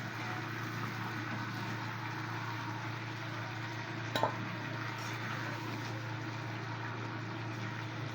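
Food frying in oil in a pan, a steady sizzle over a low hum, with a single knock about four seconds in.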